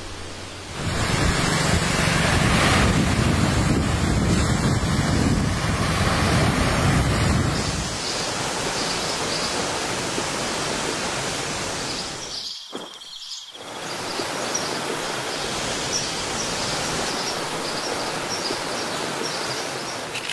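Rushing water of a waterfall and stream cascading over rocks: a steady wash of noise, fuller and deeper for the first several seconds. It breaks off briefly about two-thirds of the way through, with faint high chirps over it in the later part.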